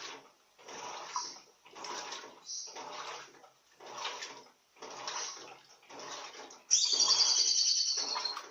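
Turbo Economia 15 kg LTD15 top-loading washing machine agitating a load of towels: water and wet cloth sloshing in strokes about once a second. Near the end a loud, high, pulsing trill lasts about a second and a half.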